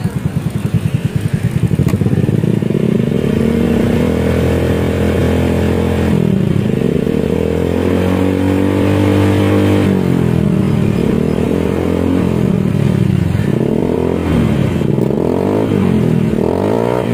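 Honda Scoopy FI's single-cylinder engine revved through an SKR aftermarket racing exhaust: it rises from idle after about two seconds, holds a long rev, drops back, then gives several shorter blips near the end. The exhaust has been revised for a softer tone.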